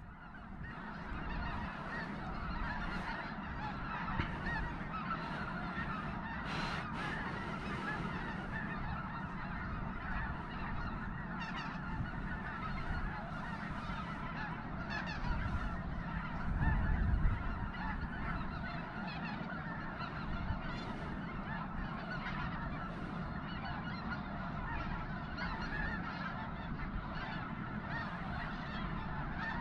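A huge flock of snow geese calling all at once: a continuous din of overlapping honks and yelps with no break.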